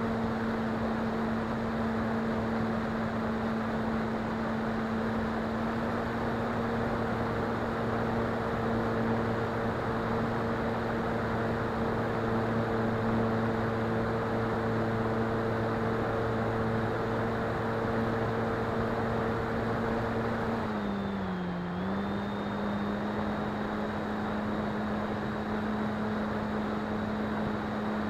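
Motor and propeller of an RC FPV plane in flight: a steady propeller drone over a rush of wind noise. About 21 seconds in, the pitch dips briefly and then settles back to a steady drone.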